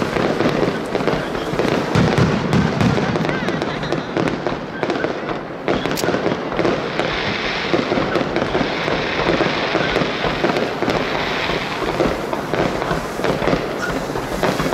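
Aerial fireworks bursting and crackling continuously in a dense barrage, with a sharp crack about six seconds in.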